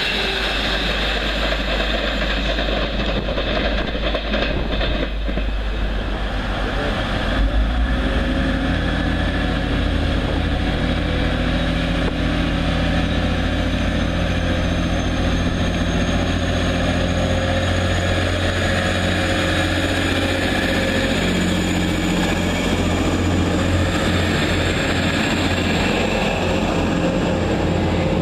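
A Class 390 Pendolino electric train rushing through the station, its noise dying away over the first several seconds. Then a Class 185 diesel multiple unit's engine running with a steady low hum at the platform, its note shifting in the last several seconds as the train pulls away.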